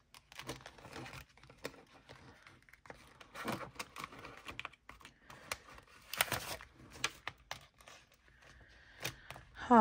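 A clear plastic cash envelope crinkling and rustling as paper bills are handled and slipped in, in several short bursts with light clicks in between.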